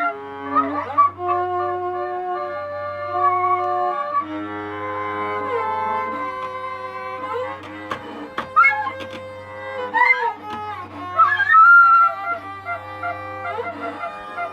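Free-form improvised music on flute and tanbur: long held notes that slide in pitch over a low drone that stops and starts. Scattered clicks and knocks fall through the middle stretch.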